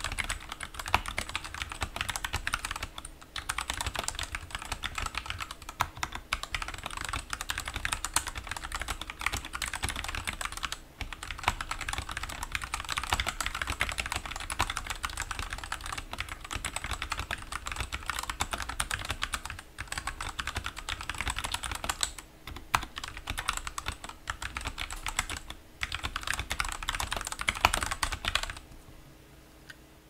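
Fast touch typing on a Tecware B68 mechanical keyboard with Gateron Black linear switches and stock PBT keycaps: a rapid, continuous clatter of keystrokes with a few brief pauses. The typing stops about a second and a half before the end.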